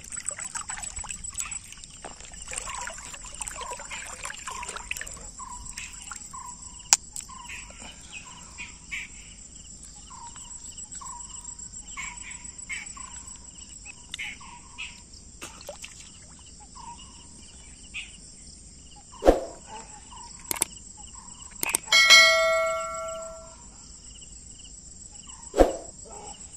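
Crickets chirring steadily, with short calls repeating about twice a second for several seconds. Later come a few sharp clicks and a single bell ding about 22 seconds in, ringing out for over a second.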